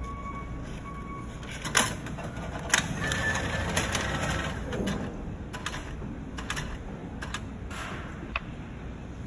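Station ticket machine's repeating beep prompt, stopping about a second and a half in, then sharp clicks and a couple of seconds of mechanical whirring as a banknote is drawn in to charge a PASMO card. Further scattered clicks from the machine follow.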